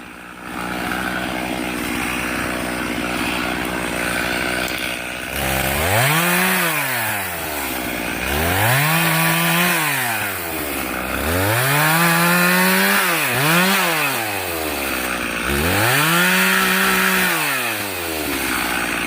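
Stihl MS 391 chainsaw running at a steady speed, then from about five seconds in revved up and let back down over and over, about every two and a half seconds, as it bucks a log into rounds.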